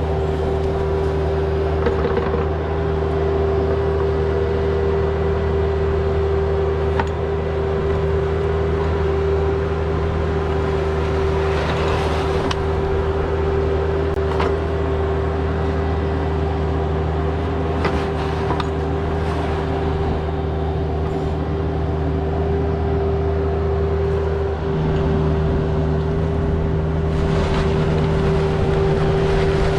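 Bobcat E26 mini excavator running steadily under work, a constant engine drone with a steady hum over it, and a few short knocks and scrapes scattered through. The engine note shifts about 25 seconds in.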